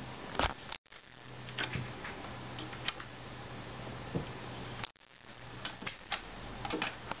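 Scattered light clicks and taps from hands handling a long metal bolt and the bunk bed's panels, coming thicker in the last couple of seconds as the bolt is fitted into its hole, over a steady low hum. The sound drops out briefly twice.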